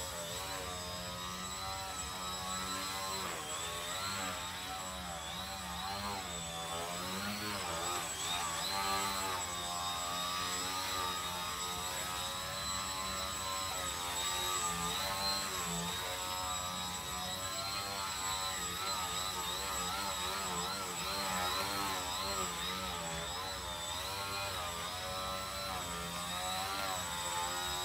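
3D-T63 foam radio-controlled 3D plane hovering in a prop hang, its motor and propeller buzzing with a pitch that rises and falls constantly as the throttle is worked to hold the hover, over a thin high whine.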